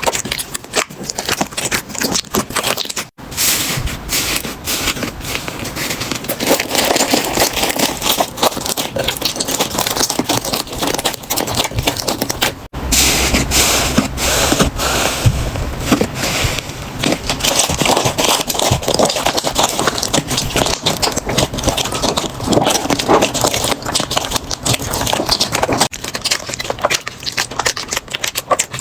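Slime being squeezed and pressed by hand, making a dense crackle of small pops and clicks. The sound breaks off sharply three times, about 3, 13 and 26 seconds in, as one slime clip cuts to the next.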